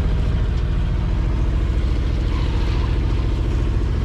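Yamaha outboard motor running steadily at cruising speed, pushing a sailboat through calm water, with an even low drone.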